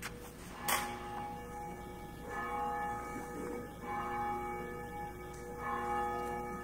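A bell struck slowly, three strikes a little under two seconds apart, each ringing on with several steady pitches, after a sharp knock under a second in.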